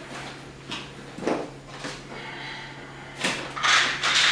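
Plastic supplement pouches rustling and containers knocking as they are lifted out of a cardboard box: a few short rustles and knocks, the loudest near the end.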